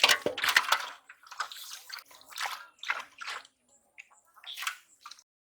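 Water sloshing and splashing in short, irregular bursts, cutting off abruptly near the end.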